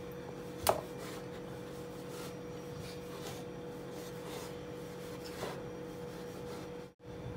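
Long knife sawing back and forth through a chocolate sponge cake: soft, faint rasping strokes, with one sharper click about a second in.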